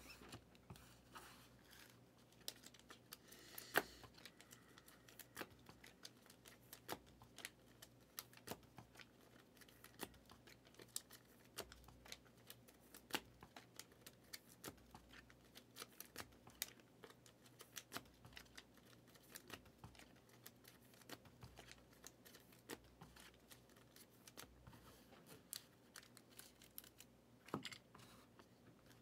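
Faint handling of trading card packs and cards: scattered soft clicks, crinkling and tearing of pack wrappers, with one sharper click about four seconds in.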